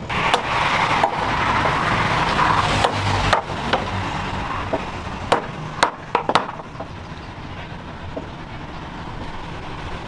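Irregular sharp knocks of tools on metal or wood, about ten in all and mostly in the first six and a half seconds, over a steady rushing noise that is loudest in the first three and a half seconds.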